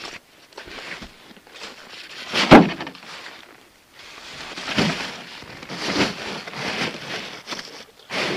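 Crunching steps in snow, with one heavy thump about two and a half seconds in.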